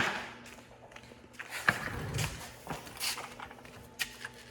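Scattered light clicks and knocks of small RC car gearbox parts being handled while it is taken apart.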